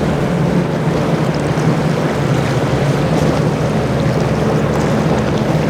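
Boat engines running steadily through rough inlet water, over the wash of waves and wind buffeting the microphone.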